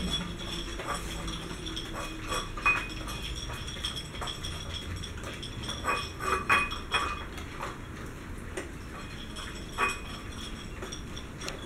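Miniature schnauzers eating dry kibble from bowls on a tiled floor: steady small crunching and scraping, with sharper clinks of kibble and teeth against the bowls now and then, several close together about six seconds in.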